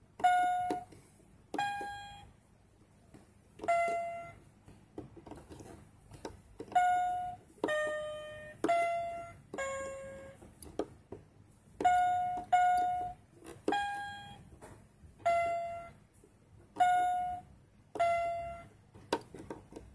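Keypad of a toy ATM bank beeping as its number keys are pressed one at a time: about a dozen short electronic tones, each fading quickly, most at the same pitch with a few lower ones.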